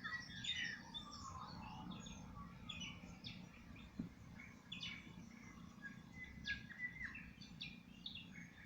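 Several wild birds chirping and calling, many short overlapping chirps and whistles, faint over a low steady background noise.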